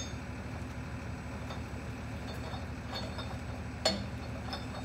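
A few sharp metallic clinks and ticks, the loudest right at the start and nearly four seconds in, as a threaded rod tool is worked in the top of an oilfield pump block, over a steady low machinery hum.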